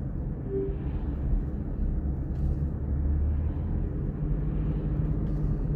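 Steady low rumble with a faint hiss, with a brief faint tone about half a second in.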